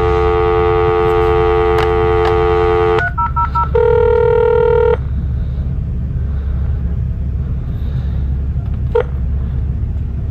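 Hotel room desk telephone on speakerphone giving a steady dial tone for about three seconds, then a few short beeps from key presses and a second steady tone for just over a second. After that only a steady low hum remains, with a single click near the end.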